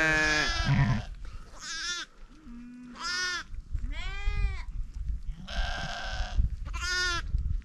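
Sheep bleating in a series of about six calls, each with an arching rise and fall in pitch. The first call is the longest and loudest. A brief low call comes about two and a half seconds in.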